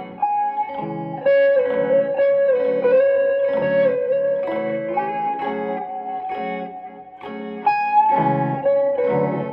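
Electric guitar playing a slow melody of long sustained notes with bends and slides, over repeated low plucked notes.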